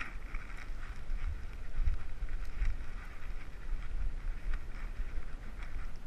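Rubbing and handling noise from a GoPro strapped to a dog shifting about on beach sand: low uneven thumps and rumble from the body's movement and wind on the housing, over a steady scratchy rustle.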